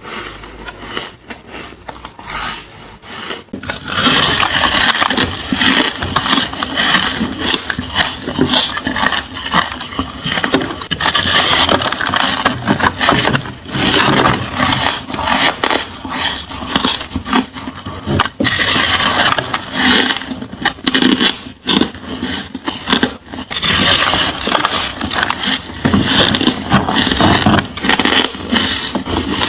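Ice being bitten and chewed close to the microphone: a dense run of crisp crunches and cracks, lighter for the first few seconds and loud from about four seconds in.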